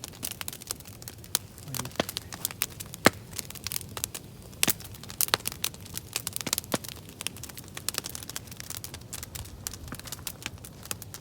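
Wood campfire burning with irregular sharp crackles and pops, the loudest about three seconds in.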